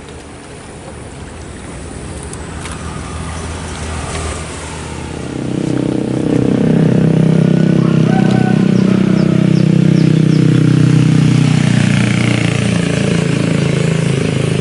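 A motor engine running steadily, low and even; it comes up loud about five seconds in and holds.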